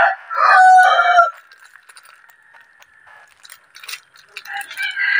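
A rooster crowing, the crow ending about a second in; another rooster call begins near the end. In between come light clicks and taps from a folding metal light stand being handled.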